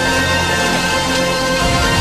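Background music with sustained notes over a steady low bass.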